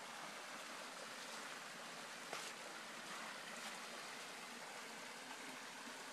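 Small mountain waterfall splashing steadily into its pool, an even rushing of water, with a brief click about two seconds in.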